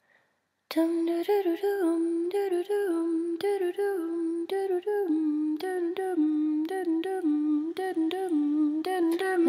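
Wordless a cappella female vocals humming a repeating melodic figure in several layered parts, starting just under a second in, with short clicks throughout.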